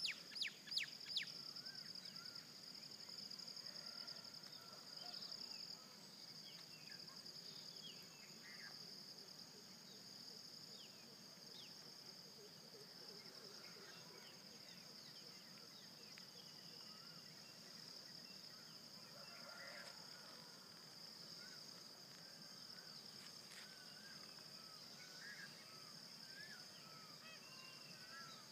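Faint steady insect chorus, a continuous high pulsing trill like crickets at dusk, with scattered short bird chirps. A few loud, sharp chirps come in the first second.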